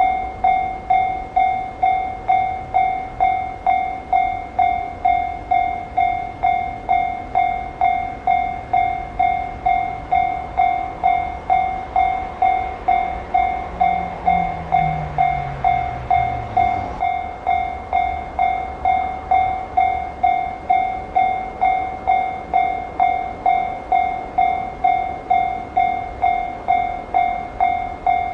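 Japanese railway level-crossing electronic alarm ringing a steady, repeated two-tone ding, a little under two a second. Under it a train rumbles past for the first two-thirds, with a low tone falling in pitch that cuts off sharply about two-thirds of the way through.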